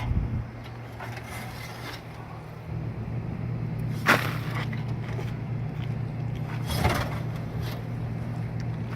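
Scraping and knocking as built-up debris is cleaned out of a rooftop air-conditioning unit's cabinet, with two louder scrapes about four and seven seconds in, over a steady low hum.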